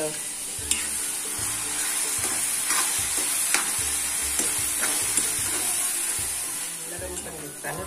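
Chopped onions sizzling in hot oil in a frying pan while a spatula stirs them, with occasional scrapes and clicks of the spatula against the pan.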